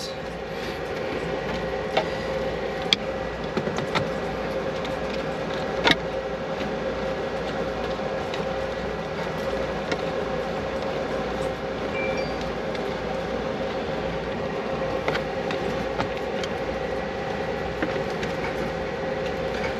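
Steady machine hum with a constant mid-pitched tone, and a few sharp clicks as a screwdriver works the screw terminals of a relay box's wiring block.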